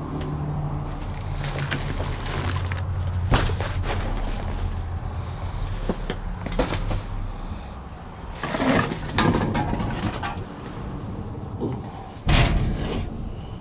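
A vehicle engine idles with a steady low hum, broken by several knocks and clatters and one loud bang near the end.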